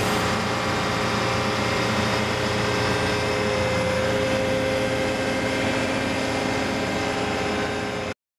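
A heavy engine runs steadily on the dredging vessel, a constant hum with a held pitch, until it cuts off suddenly near the end.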